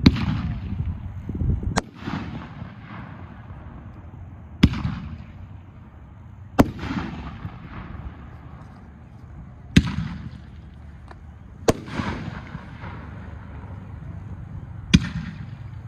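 Jellyfish Monster consumer fireworks cake firing: a shot lifts off at the start, then six sharp bangs of bursting shells come every two to three seconds. Each bang is followed by a fading hiss of a second or two.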